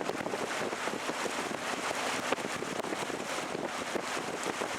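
Wind buffeting and crackling on the microphone over the steady noise of a moving open canal tour boat on the water.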